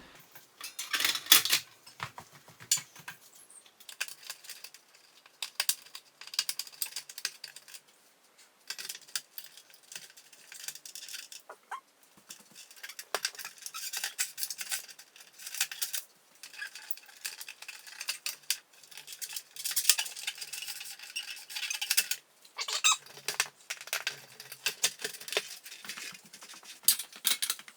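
Repeated squeaks and clicks in bursts of a second or two: parts of an old ceiling-mounted fluorescent light fixture being worked loose and taken down.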